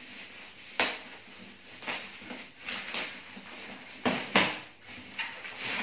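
Black plastic wrapping rustling and crackling as it is pulled off a cardboard box, in a few sharp rustles, the loudest about four seconds in.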